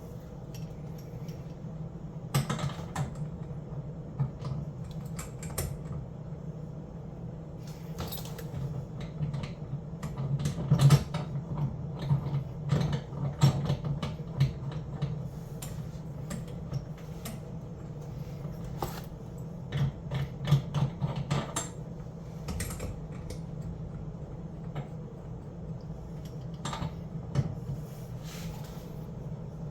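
Scattered clicks, knocks and creaks of hand tools and metal fittings being worked, coming in clusters with the busiest stretch near the middle, over a steady low hum.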